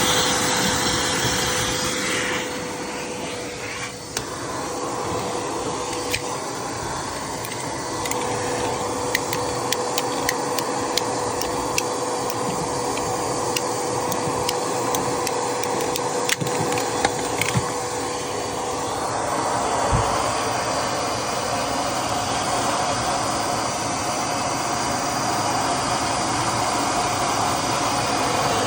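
EGO cordless wet/dry vac running steadily, sucking on a clogged PVC condensate drain line. Its sound shifts about two seconds in and again about two-thirds of the way through, with scattered small clicks in between.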